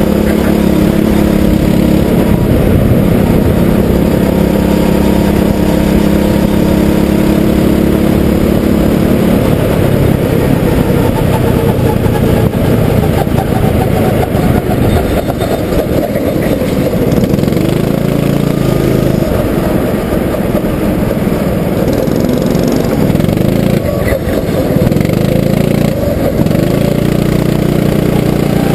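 Go-kart engine heard from on board while lapping, its pitch steady for the first third and then rising and falling repeatedly as the revs change.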